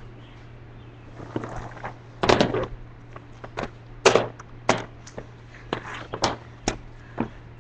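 A string of sharp knocks and clacks, about a dozen at uneven spacing, the loudest about two seconds in and about four seconds in, over a low steady hum.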